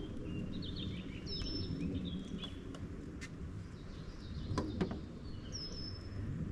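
Small birds chirping in short, high whistled notes over a steady low rumble, with a few sharp clicks around the middle.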